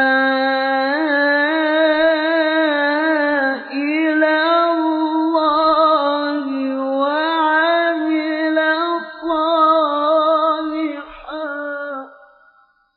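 A male Quran reciter chanting a long melodic phrase in tilawah style, the pitch wavering and ornamented around a sustained note. The phrase trails off about twelve seconds in.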